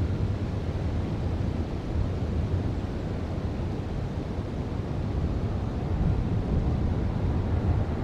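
Wind blowing over an outdoor camera microphone: a steady low rumble that swells and eases with the gusts.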